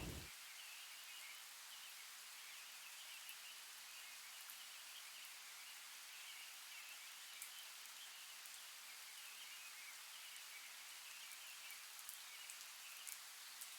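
Faint outdoor ambience: a steady low hiss with small distant bird chirps throughout.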